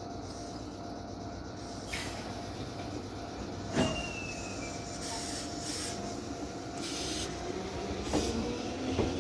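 Electric train at a station: a steady hum with scattered clanks and short hisses, then, about two seconds before the end, the traction motor's whine starts and rises steadily in pitch as the train accelerates away.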